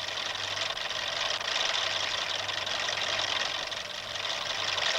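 A small machine running with a steady mechanical whirr and hiss, like a cartoon motor sound effect.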